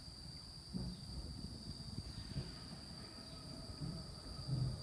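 Insects droning in a steady, high-pitched chorus over a low, uneven rumble that grows louder near the end.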